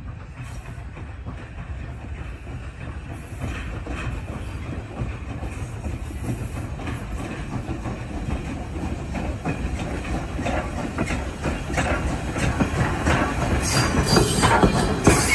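Steam locomotive No. 89, an ex-Canadian National 2-6-0 Mogul, running tender-first with its passenger coaches, approaching and passing close by. Wheels click over the rail joints, and the sound grows steadily louder as the train draws near.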